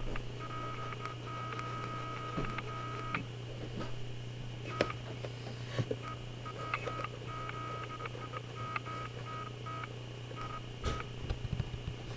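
Electrical noise picked up by a Logitech webcam's built-in microphone: a steady low hum with a higher electronic tone that cuts in and out in short stretches, and scattered clicks.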